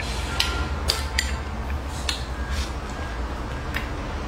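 A person chewing food, close to the microphone, with about six short, sharp clicks and smacks spread through, over a low steady hum.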